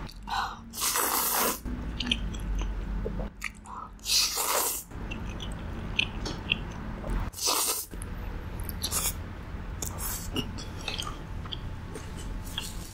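Close-miked eating sounds: a person chewing mouthfuls of cheesy tteokbokki with pasta, with small wet mouth clicks and three louder noisy bursts, each under a second.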